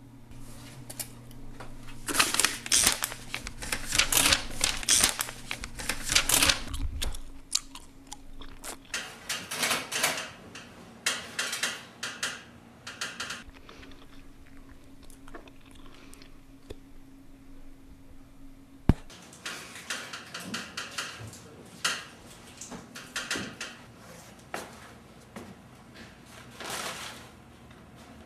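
Typewriter being typed on in bursts of rapid clattering key strikes with pauses between them. A steady low hum stops about a quarter of the way in, and a single sharp click stands out about two-thirds of the way through.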